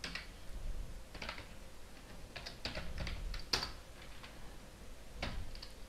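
Computer keyboard being typed on: irregular keystrokes in small runs with pauses between, one key struck harder about halfway through.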